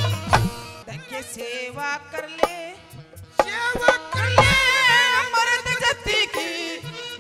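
Live Haryanvi ragni folk music: hand drums strike throughout under a melody line that bends and wavers in pitch, with a heavy low drum stroke about four seconds in.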